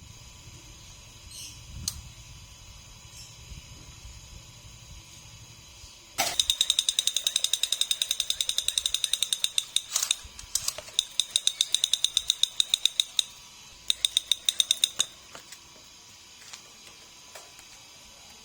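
Rapid, evenly spaced mechanical clicking in three runs, the first starting suddenly about a third of the way in and the last stopping a few seconds before the end.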